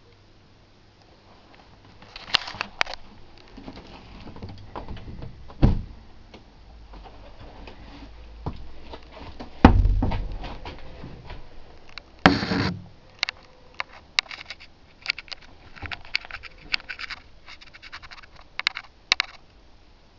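Wooden caravan furniture being handled: a storage compartment lid or cupboard door is opened and closed, with two heavy thuds, a short scrape about twelve seconds in, and a run of small clicks and rattles after it.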